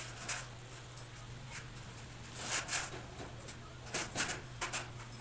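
Tissue paper rustling and crinkling in several short scrapes as a clogged inkjet printhead is wiped clean, the loudest about halfway through and again near the end, over a steady low hum.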